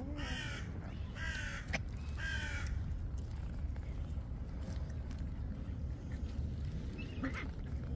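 A crow cawing three times in quick succession, about once a second, then a fainter call near the end, over a steady low background rumble.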